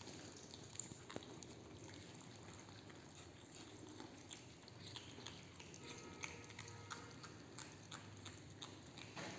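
Cats eating: faint, irregular chewing and crunching clicks, with a brief small pitched cat sound about six seconds in.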